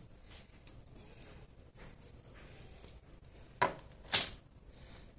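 Hands handling a smartwatch and its box: light clicks and taps, then two short, louder scuffs a little over halfway through, the second the loudest.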